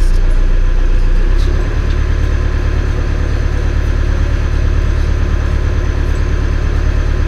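Boat engine running steadily as the boat gets under way, its low note shifting about a second and a half in.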